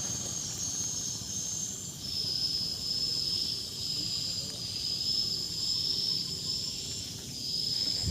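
Insects keeping up a steady high-pitched buzzing chorus that drops slightly in pitch about two seconds in, over faint low rustling.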